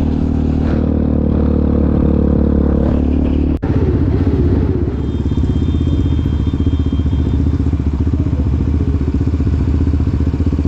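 Quad bike engines running steadily, a low engine note with a fast even pulse. The sound breaks off sharply for an instant about three and a half seconds in, then carries on.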